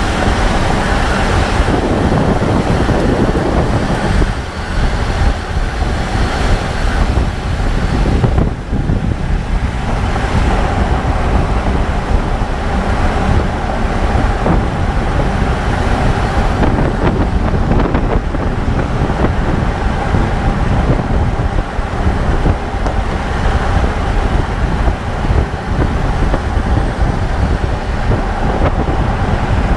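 A 2014 Range Rover Sport SDV8 on the move: steady, loud road and running noise.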